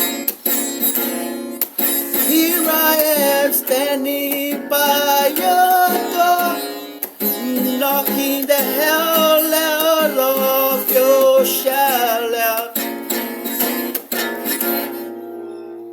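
Acoustic guitar playing with a sung melody over it; near the end the music dies down to a held chord that rings out and fades.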